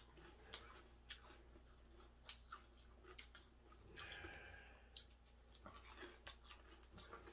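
Faint chewing of crisp fried hairtail bones: scattered soft crunches and clicks.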